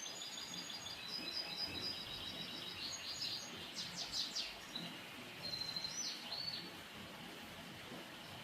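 European goldfinch twittering: a run of high, rapid notes and short trills, with a few quick downward-sweeping notes about four seconds in, stopping after about six and a half seconds over a steady background hiss.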